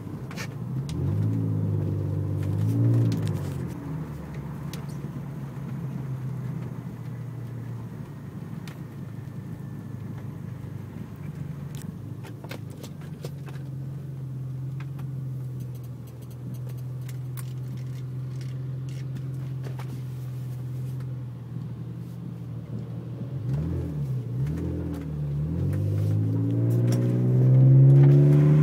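BMW 523i E39's straight-six engine running through a handmade aftermarket exhaust. There are a few quick throttle blips about two seconds in, then a long steady idle, then more blips and a rising rev near the end.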